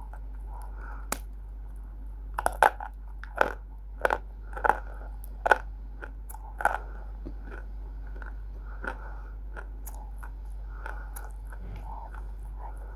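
Roasted multani mitti (fuller's earth clay) being bitten and chewed close to the microphone: a run of sharp crunches, about one a second, between two and seven seconds in, then quieter chewing.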